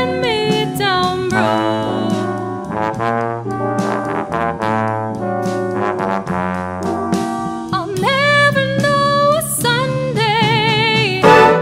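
Jazz big band playing a slow arrangement: trombones, trumpets and saxophones holding layered chords over piano, guitar, upright bass and drums. From about eight seconds in, a female vocalist sings a line with wide vibrato over the band.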